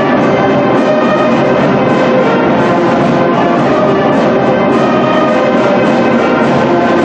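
Music playing steadily at a constant loud level, many held notes sounding together with no break.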